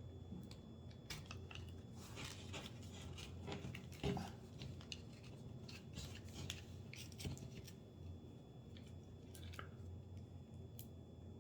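Quiet snipping, rustling and scattered small clicks as the paper casing of a firework canister shell is cut open to get at its black powder lift charge.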